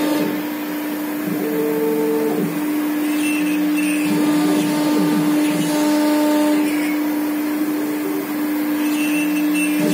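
CNC router's 5.5 kW spindle running with a steady whine as the bit engraves a pattern into a sheet. Shorter humming tones that shift and glide in pitch come and go over it as the head moves along its axes.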